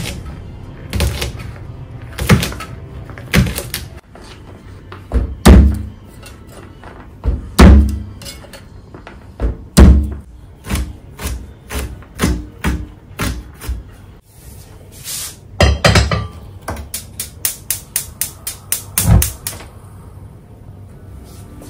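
Chef's knife chopping green beans on a cutting board: a series of knife strikes, some of them heavy thuds, with a quick run of about three to four chops a second near the end.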